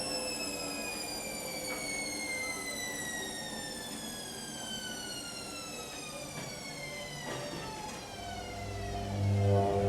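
AEG Öko Lavamat Edition 2000 washing machine winding down from a spin: a high motor whine falling steadily in pitch as the drum slows. Near the end a louder low hum sets in.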